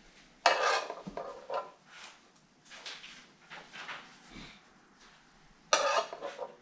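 Metal spatula scraping across an electric skillet: two loud scrapes about five seconds apart, with lighter scrapes and taps between.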